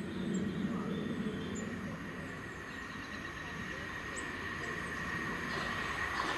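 Southern Class 377 electric multiple unit approaching along the line, a low rumble at first, then a steady high whine that grows louder as the train draws near.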